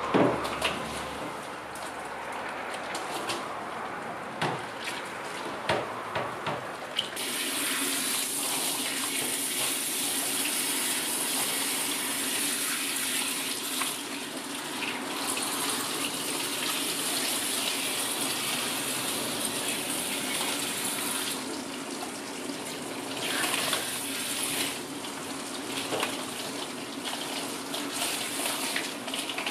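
Water splashing and sloshing in a dipper, then a hand-held shower head spraying water steadily onto a toy poodle's coat to rinse out conditioner, starting about seven seconds in, with a low steady hum under the spray. The spray eases off briefly a couple of times.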